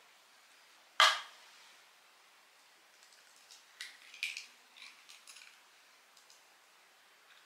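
A single sharp knock about a second in, then a run of small crackles and clicks as an egg's shell is pulled apart over a food processor bowl to let the white drop in.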